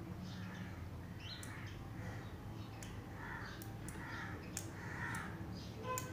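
Crows cawing in the background, with several sharp clicks as a round magnet is worked against a 5 V relay, whose contacts switch a CFL bulb on and off.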